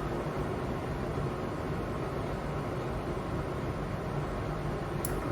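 Victor gap bed engine lathe running with its spindle turning under power, a steady whir with a low hum. A sharp click near the end.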